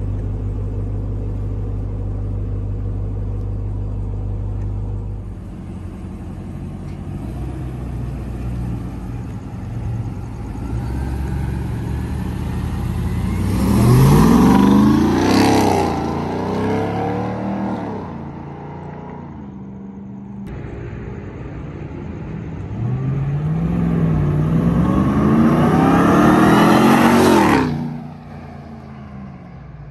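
2021 Ram 1500 TRX's supercharged 6.2-litre V8, first running with a steady low rumble, then accelerating hard past twice. The engine note climbs through the gears around the middle and again in the last third, and cuts off sharply near the end.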